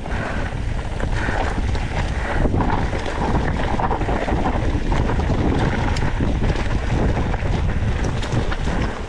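Wind rushing over the microphone of a rider's camera on a mountain bike moving fast down a trail, with a steady rumble and close-set rattling from the bike and tyres over rough ground.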